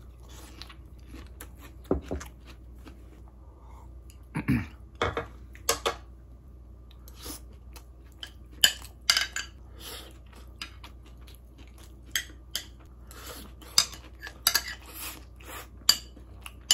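A spoon and chopsticks clinking and scraping against a ceramic bowl while eating. The clicks are sparse at first and come thick and fast through the second half.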